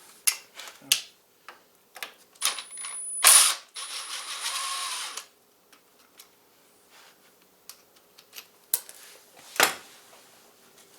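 Hand ratchet wrench clicking as bolts are worked on the motorcycle's brake pedal assembly: scattered tool clicks, then a longer run of quick ratcheting in the middle, and a sharp knock near the end.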